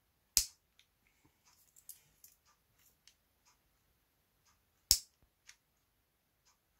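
Piezo igniter of a Victorinox Swiss Army knife's built-in butane lighter clicking as it strikes a spark: three sharp clicks several seconds apart, with faint ticks between.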